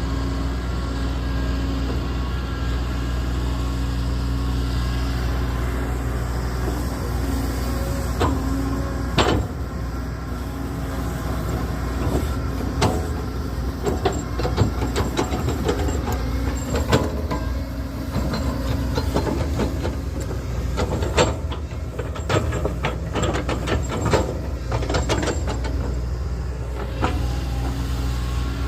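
Heavy construction machine's diesel engine running steadily, with a run of sharp knocks and clanks from the working gear starting about a quarter of the way in and thinning out near the end.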